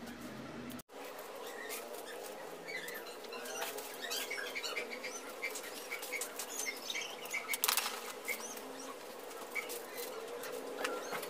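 Rustling and crinkling of foil candy wrappers and organza gift bags as wrapped chocolates are handled and bagged by hand, scattered small crackles with a louder rustle near the end, over a faint steady hum. The sound drops out briefly about a second in.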